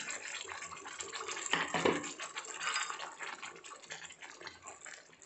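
Wet ground tomato going into hot masala frying in mustard oil in a pan: a steady sizzling hiss with small crackles, with a knock and scrape about one and a half seconds in. The sizzle fades toward the end as the paste cools the pan.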